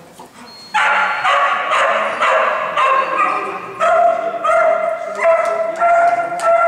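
Dog barking loudly and repeatedly, about two barks a second, starting under a second in and carrying on without a break.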